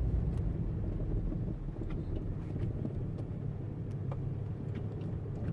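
A car being driven slowly, heard from inside the cabin: a low, steady engine and road rumble, with a few faint ticks.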